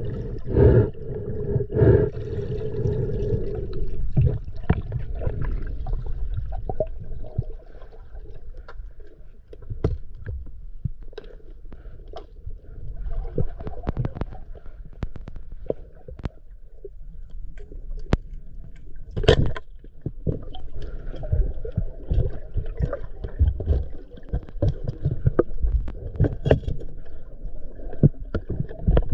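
Underwater sound picked up by a submerged camera: a muffled low rumble and water gurgling with scattered clicks and knocks, the loudest knock about two-thirds of the way through. A steady hum runs through the first four seconds.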